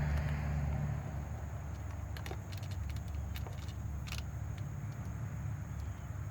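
A few light metallic clicks and clinks of parts and tools being handled, bunched about two to four seconds in, over a steady low hum.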